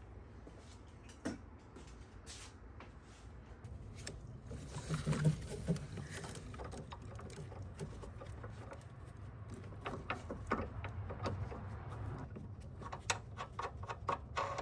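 Small clicks and handling noises of parts being fitted by hand around the engine mount, including the dust cap being put back on, over a low steady hum. Near the end come a run of quick, evenly spaced clicks.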